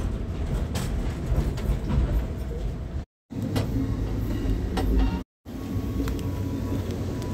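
Steady low rumble of a moving Amtrak passenger train heard from inside the car, with scattered clicks and rattles. The sound cuts out completely twice, briefly, about three and five seconds in.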